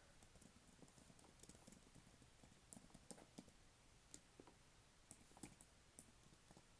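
Quiet typing on a computer keyboard: irregular key clicks, with a few sharper taps about halfway through.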